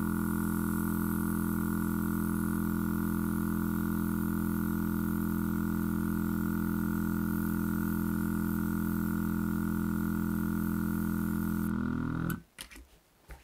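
Small battery-powered airbrush compressor motor running with a steady hum while the airbrush sprays, then switched off about twelve seconds in, its pitch sagging briefly as it stops. A few light clicks follow.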